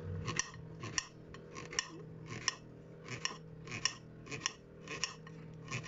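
Kitchen paring knife slicing a green apple into thin slices on a ceramic plate: a steady run of short, crisp cuts, two or three a second.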